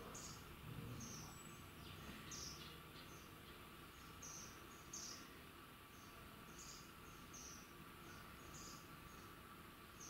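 A small bird giving short, high-pitched chirps, some falling slightly in pitch, repeated irregularly about once a second and faint.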